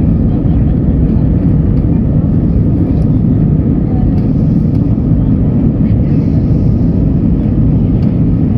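Steady, loud cabin noise of an Airbus A319 in its takeoff or climb: the deep, even roar of the jet engines and airflow, heard from a window seat inside the cabin.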